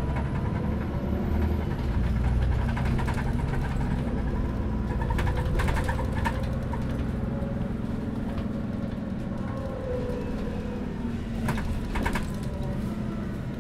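Ride inside an MAN NÜ283 low-floor city bus: a steady diesel engine drone from the moving bus, with the bus body rattling in two short bursts of clatter, mid-way and near the end.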